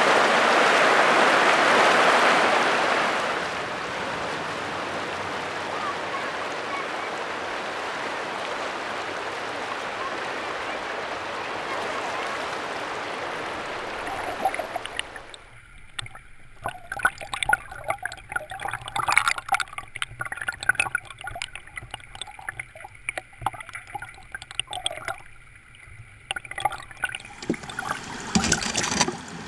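Shallow river water rushing steadily over gravel. About halfway through it gives way to a closer, choppier sound of gurgling and irregular splashes and crackles.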